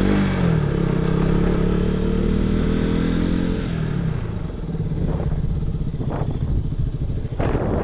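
Sport motorcycle engine running as the bike rides along. The engine pitch falls steadily over the first few seconds as the rider rolls off the throttle, then holds lower and steady. A hiss of wind and road noise runs underneath.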